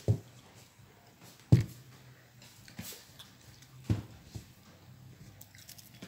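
Dining table and plate knocked a few times while someone eats rice with her hand: five short dull knocks, the loudest about a second and a half in, over a faint low hum.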